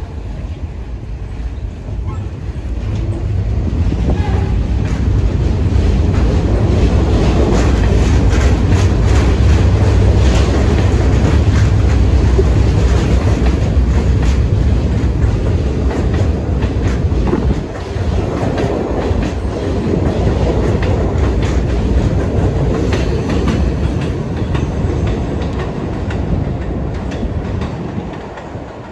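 New York City subway train running past, loudest through the middle and fading near the end, with steady wheel-on-rail noise and many quick clicks from the wheels on the track.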